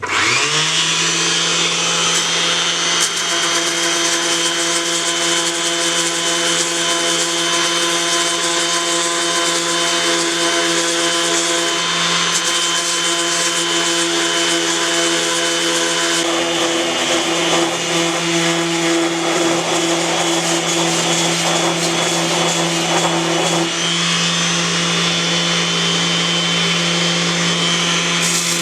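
Electric power sander with 80-grit paper starting up and running steadily, its motor hum under the rasp of the paper sanding a 3D-printed plastic sword joint filled with Bondo. The rasping grows rougher for a stretch in the middle, then evens out again.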